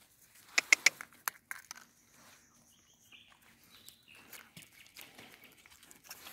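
Wild boar walking along a gravel path: a few sharp clicks in the first second or so, then faint, light crunching steps on the gravel.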